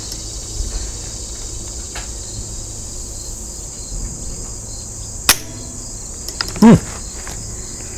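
Steady high chirring of crickets or other insects. A few sharp clicks cut through it, the strongest about five seconds in, and a brief loud sound with a falling pitch comes shortly after.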